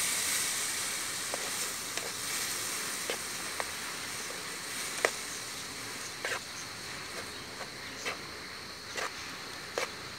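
Chopped vegetables frying in oil in a pan, a hissing sizzle that slowly fades, with a metal spatula scraping and clinking against the pan about once a second as they are stirred.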